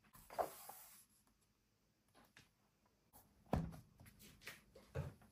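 Pages of a hardback picture book being turned and handled: a brief paper swish in the first second, then a soft thump and a few light taps as the book is handled.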